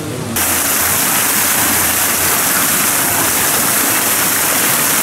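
Fountain jets splashing into a stone basin: a steady, loud rush of falling water that starts suddenly just after the beginning.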